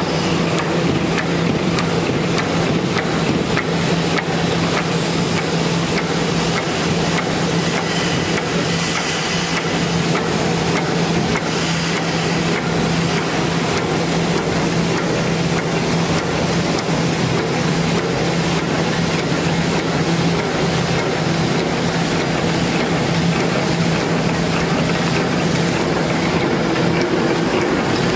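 Wet wipes automatic flow-wrapping packaging machine running at speed, a steady, even mechanical running noise with a constant low hum.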